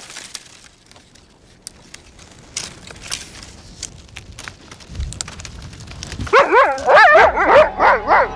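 Faint scattered crackling, then about six seconds in dogs break into rapid, excited yelping and barking, quick rising-and-falling calls tumbling over one another.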